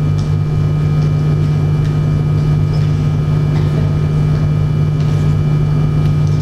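A steady, loud low hum that does not change, with a few faint ticks in it.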